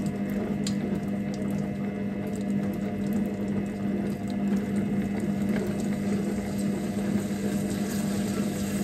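Carlo Cracco MasterPro multifunction cooking robot running a heat-and-stir program at 120° on its slowest stirring speed: a steady motor hum with a strong low tone, with scattered light crackles from the potatoes cooking in the bowl.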